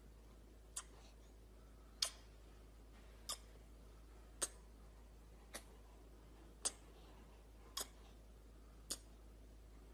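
Golden retriever puppy hiccuping: a short, faint, sharp click roughly once a second, eight times, at a slightly uneven pace.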